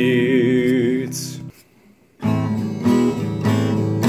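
A man's held sung note over acoustic guitar ends about a second in; the guitar fades to a brief near-silent pause, then strumming on the acoustic guitar starts again a little after two seconds in.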